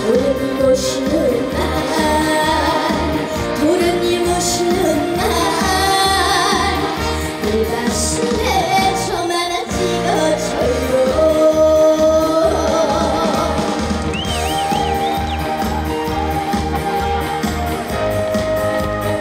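A young woman singing a trot song live over backing music with a steady beat, holding and bending long notes.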